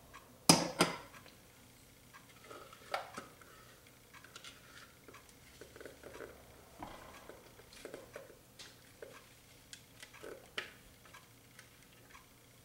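Spatula scraping batter out of a clear plastic food processor bowl: scattered light scrapes and taps, with one sharp knock about half a second in.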